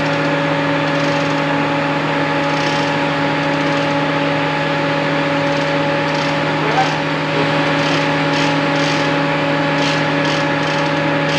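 Electric motor of a jet water pump running with a steady hum, with a few faint clicks a little after halfway.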